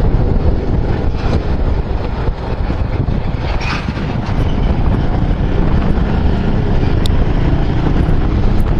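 Riding noise from a Bajaj Avenger Cruise 220 single-cylinder motorcycle on the move: steady wind rush over the microphone with the engine running underneath.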